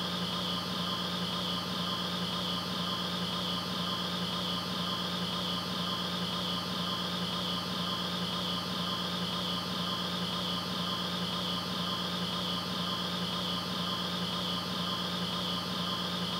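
Steady hum over a constant hiss, with a high tone that wavers slightly; nothing changes throughout.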